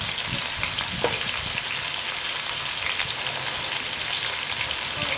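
Black chicken pieces sizzling and crackling in hot oil in a steel wok, with light clicks of metal tongs against the pan as the pieces are turned, the sharpest about a second in.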